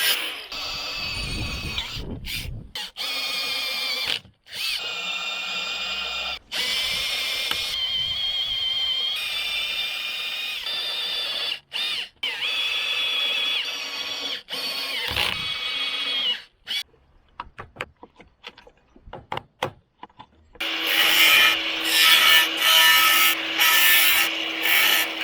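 Handheld electric power tool running on car body sheet metal during rust cutting, with a high whine that wavers in pitch as it works. It comes in several stretches broken off suddenly, with a few seconds of scattered clicks and taps about two-thirds of the way through, then a louder stretch near the end.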